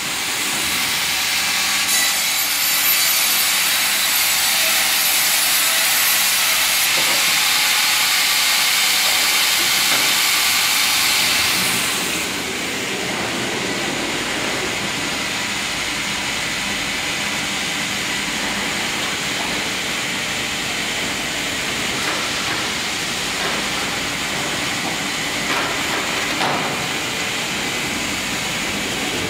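Vertical band saw headrig cutting through a log on its carriage: a loud, steady, high hiss that stops about twelve seconds in. After that, a lower steady machine noise from the running mill, with a few short knocks near the end.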